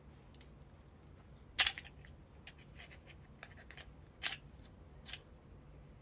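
Sharp clicks and light rattles of a metal camera quick-release mount and phone clamp being handled and fitted together: one loud click about one and a half seconds in, two more near the end, with small ticks between.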